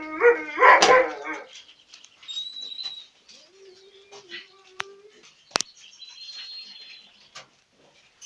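Cage birds giving thin high whistled notes, after a loud animal call of about a second and a half at the start. A single sharp click comes about halfway through.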